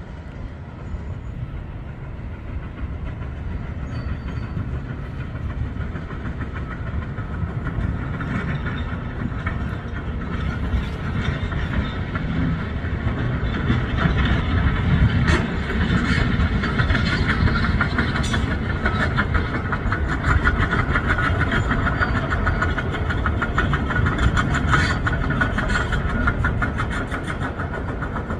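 Heavy construction machinery running and rattling, growing louder over the first half and then holding steady, with scattered sharp metallic clanks.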